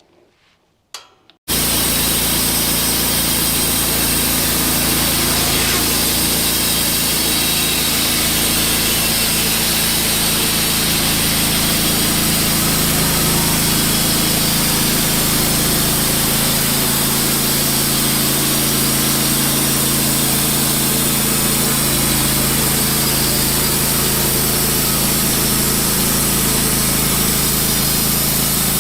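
Wood-Mizer LT15 portable bandsaw mill running steadily, its band blade cutting through a soft maple log. The sound starts abruptly about a second and a half in, after near silence, and holds at one level.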